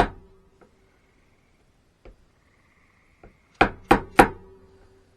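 Wood chisel being struck to cut a rabbet into a board by hand, giving sharp wooden knocks: one hard blow at the start, a few light taps, then three hard blows in quick succession about three and a half seconds in.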